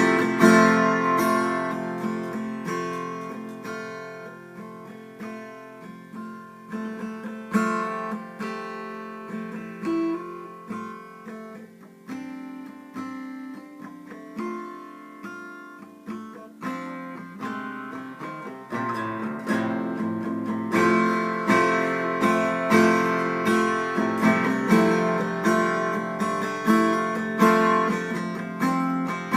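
Guitar in D standard tuning being played, chords strummed and left to ring. The playing is softer through the middle and builds louder again about two-thirds of the way in.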